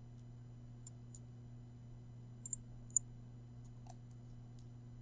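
A handful of light, high-pitched clicks from a dropper bottle tip tapping against a glass test tube while solution is dripped in, the sharpest about three seconds in. A steady low hum runs underneath.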